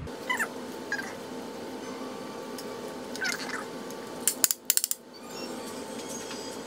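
A cat meowing: short calls that slide down in pitch, three times, over a faint steady hum. About four and a half seconds in comes a quick run of sharp clicks, the loudest sound here.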